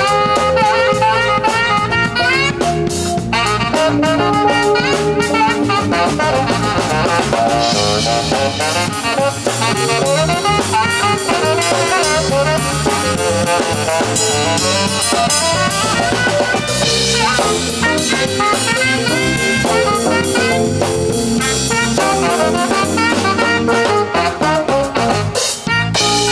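Live jazz combo playing an instrumental: electric keyboard chords and runs over a drum kit with cymbals and rimshots.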